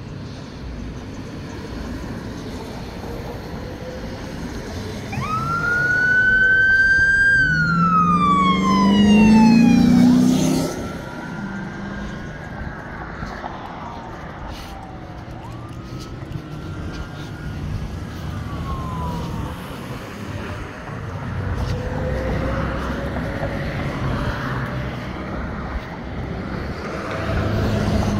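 Emergency vehicle siren wailing in three slow rise-and-fall cycles, the first the loudest with a low vehicle rumble under it, the later two fainter. Road traffic runs throughout.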